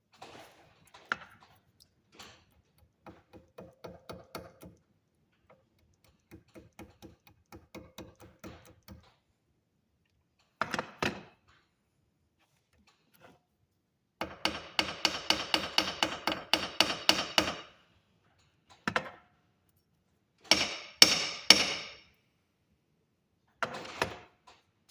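Hand tools working copper wire: runs of quick, even tapping and clicking, the longest and loudest about two thirds of the way through, with a few separate louder knocks.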